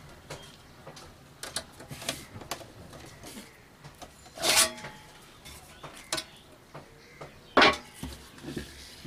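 Sheet-steel casing of a computer power supply being handled as its top cover is taken off: scattered light clicks and scrapes, with a louder metallic clatter about four and a half seconds in and a sharper knock about seven and a half seconds in.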